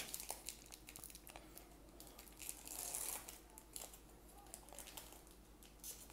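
Foil wrapper of a baseball card pack crinkling as it is opened and the card pulled out: faint crackles, a little louder about halfway through.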